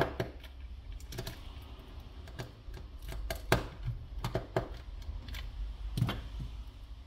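Scattered light clicks and taps of hard plastic and small parts being handled, as a small power-button and LED board is worked free of the dock's plastic front panel.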